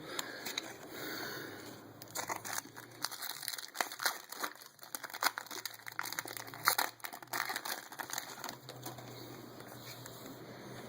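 Trading-card pack wrapper crinkling as a pack is opened, with cards handled: an irregular run of crackles and rustles, busiest from about two seconds in until near the end.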